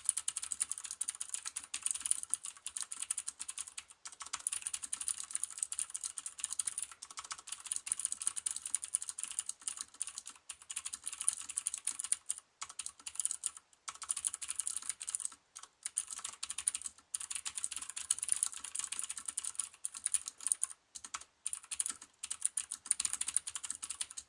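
Fast continuous typing on a mechanical keyboard with clicky Cherry MX Green switches and DSA-profile keycaps: a dense stream of sharp key clicks with a few brief pauses, stopping suddenly at the end.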